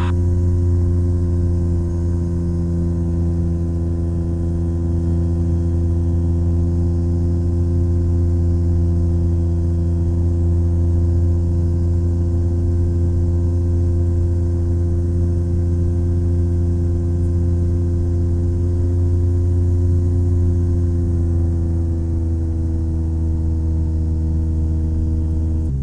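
Rotax 582 two-stroke engine and propeller of a Chinook Plus 2 ultralight droning steadily in flight. About four-fifths of the way through, the pitch eases slightly lower and then holds.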